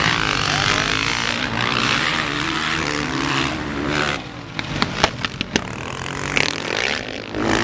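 Motocross motorcycles racing around a dirt track, their engines revving and running, louder in the first half. Several sharp clicks in the second half.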